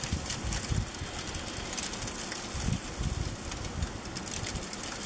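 Wind buffeting the microphone over a steady hiss, with irregular low rumbles and faint scattered crackles.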